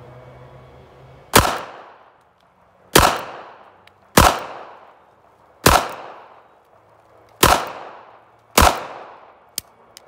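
Ruger LCP .380 pocket pistol, fitted with a curved Peacemaker trigger, 13 lb recoil spring and stainless steel guide rod, fired six times at an unhurried pace, about one shot every second and a half. Each shot rings off with a short fading tail, and a small click follows near the end.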